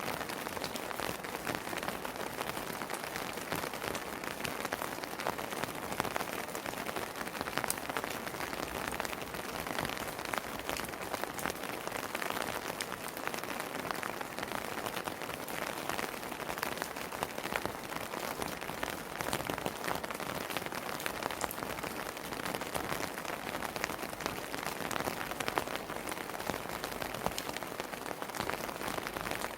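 Steady rain falling: an even hiss of rainfall with many individual drops ticking close by.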